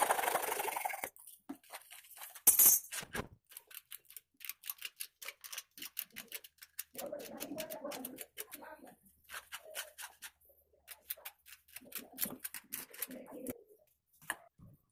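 Hacksaw cutting through PVC pipe for about the first second, then a sharp clatter and a run of short clicks and knocks from the pipe and fittings being handled. A pigeon coos in the background a few times.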